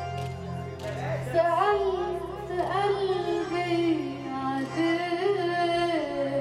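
Live Arabic oriental band music for belly dance: a wavering, ornamented melody line over electronic keyboard accompaniment, with a steady low drone underneath.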